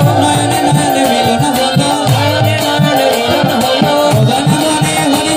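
Bengali kirtan music: a harmonium holds the melody over repeated strokes of a khol (mridanga) clay drum and the jingle of small brass hand cymbals (kartal), with a voice singing over them.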